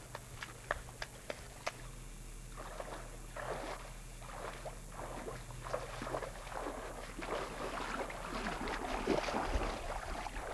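Shallow river water splashing and sloshing in irregular bursts as a person wades through it, after a few sharp ticks in the first couple of seconds.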